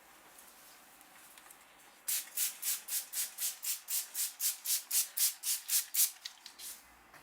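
Hands rubbing the hair and scalp briskly in a head massage: a run of quick, even rubbing strokes, about four a second, that starts about two seconds in and stops near the end.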